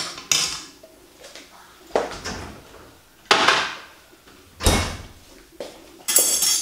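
Kitchen handling sounds: about half a dozen separate clinks and knocks as a jar and dishes are moved and set down, and a refrigerator door opened and shut. The deepest, heaviest thud comes about three-quarters of the way through.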